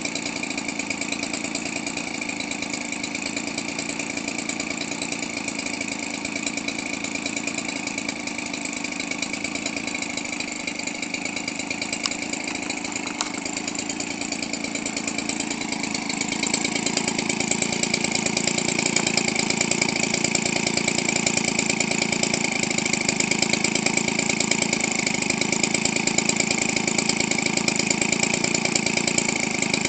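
Weedeater Featherlite 17cc two-stroke engine, converted for radio-control aircraft use, idling steadily. It grows a little louder about halfway through.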